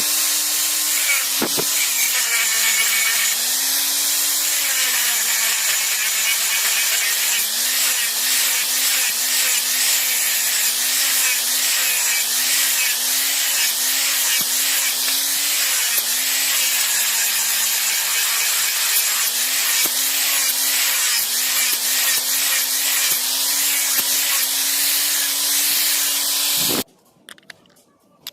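Electric grinder grinding iron: a steady motor whine that dips in pitch and recovers again and again as it is pressed into the work, over a dense high hiss of metal being ground. It cuts off suddenly near the end.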